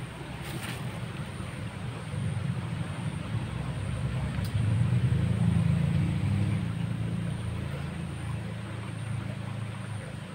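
Low engine rumble of a passing vehicle, swelling to its loudest about halfway through and then fading.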